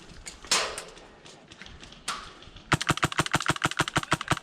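Airsoft rifle firing full-auto: a fast, even string of sharp shots, about ten a second, starting a little past halfway in. It follows two short hissing rushes.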